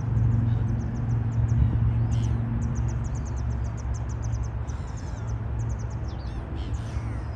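Steady low hum of distant traffic, with runs of quick, high-pitched bird chirps over it and a few short rising-and-falling bird calls near the end.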